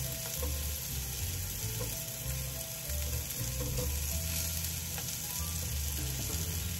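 Food frying in a pan on the stove: a steady sizzle.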